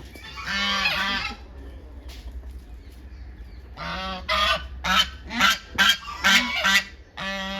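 Domestic ducks quacking loudly during a squabble with hens: one long call about half a second in, then a rapid run of about eight short quacks from about four seconds in.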